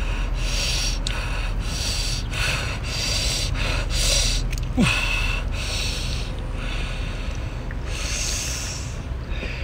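A man blowing short, sharp breaths out through pursed lips again and again, roughly every two-thirds of a second, to cool cooked sea snail meat that is too hot to handle or eat.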